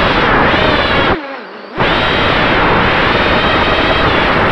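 The Emax 200 quadcopter's Emax RS2205 2300kV brushless motors and propellers whine loudly in flight, their pitch wavering with throttle. About a second in the throttle is cut and the whine falls away for half a second, then it is punched back up to full sound. It is heard from the onboard camera, with prop wash on the microphone.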